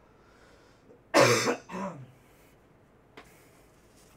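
A person clears their throat with a cough: a loud double burst about a second in, followed by a faint click.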